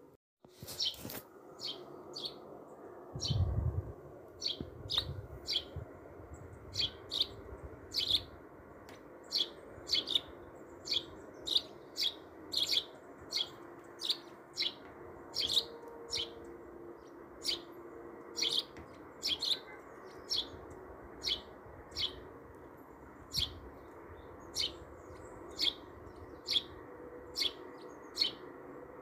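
A small bird chirping over and over, one short high chirp about every half second to second, steady and unhurried. A few low thumps come in about three seconds in.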